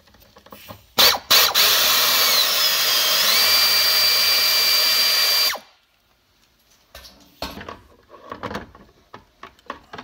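An air tool fitted with a T50 Torx bit runs on the seat belt anchor bolt to back it out. It gives two short blips about a second in, then runs for about four seconds with a hiss and a steady whine. The whine dips in pitch briefly, then holds steady until it stops suddenly. Light handling knocks follow.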